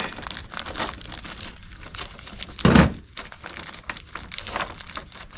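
Clear plastic hardware bag crinkling as it is torn open and handled, with one louder bump about halfway through.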